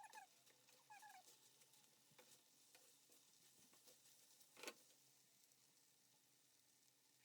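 Near silence: faint room tone with scattered soft clicks, one a little louder than the rest, and two brief squeaky chirps near the start.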